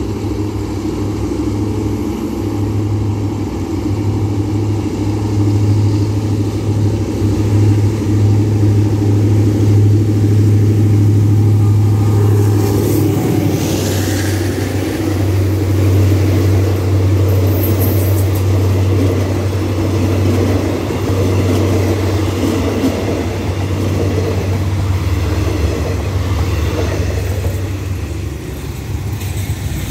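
Alsthom diesel-electric locomotive no. 4415 running under heavy throttle as it accelerates rapid train 167 past, with a steady deep engine drone that is loudest about ten seconds in. From about 13 seconds the passenger coaches roll by with steel-wheel and rail noise and a couple of brief high-pitched squeals.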